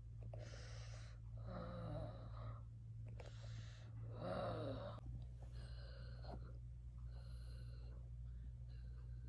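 A person's breathy gasps and sighs, about four in the first five seconds and fainter ones after, over a steady low hum.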